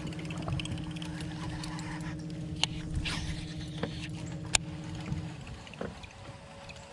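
Electric bow-mount trolling motor humming steadily, stopping about five seconds in, with small clicks of a baitcasting rod and reel and a short swish about three seconds in.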